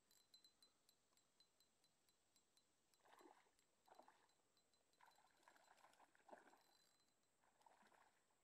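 Near silence, with only a few faint ticks and soft sounds.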